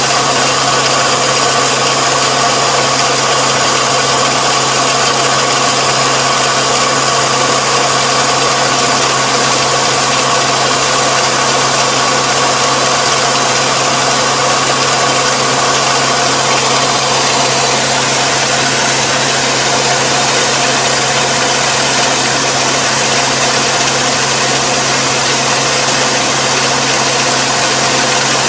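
Combine harvester engine and machinery running steadily at constant speed, with a wide mechanical hiss over the engine tone. A higher whine fades out a bit over halfway through.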